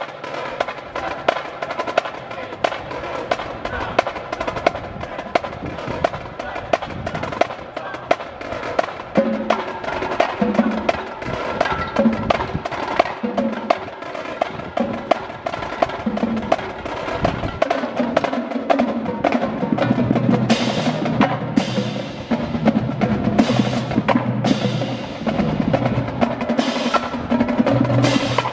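Indoor drumline with its pit ensemble playing a percussion piece: a dense run of crisp, clicking strokes over pitched parts. Low bass-drum notes come in partway through, and repeated cymbal crashes join in the last third.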